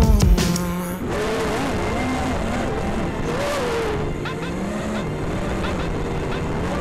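The music stops about a second in, leaving the onboard sound of an FPV racing quadcopter's brushless motors (ZMX Fusion X20 2205 2300kV on a QAV-X210 frame) whining over propeller wash, the pitch rising and falling as the throttle changes through the flight.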